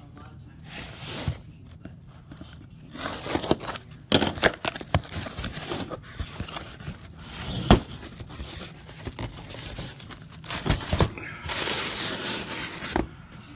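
Trading card box and packs being handled and torn open: irregular tearing and crinkling of wrapper, with sharp clicks and taps, and a longer stretch of tearing near the end.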